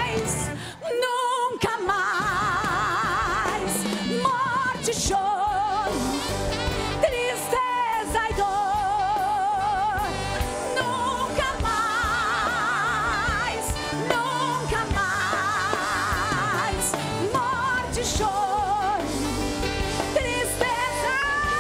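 Live gospel song: singers holding notes with heavy vibrato over a band with drums and keyboard.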